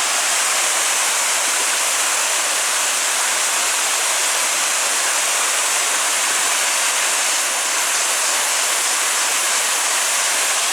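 Waterfall: a steady rush of falling water, even and unbroken, heavy in the high hiss.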